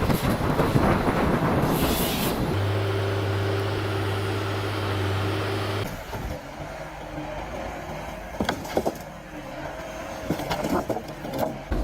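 A heavy forestry machine working: its engine runs with a steady low hum for a few seconds, and there are scattered knocks and cracks from the machine and the timber.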